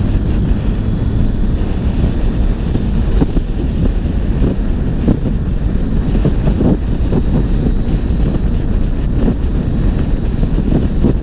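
Strong wind noise buffeting the microphone as a Yamaha XSR900 motorcycle is ridden at road speed, with the drone of its inline-three engine running underneath.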